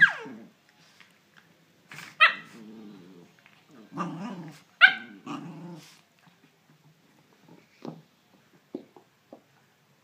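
A dog growling in play, with three short, sharp, high-pitched barks; the first falls in pitch. A few soft clicks follow near the end.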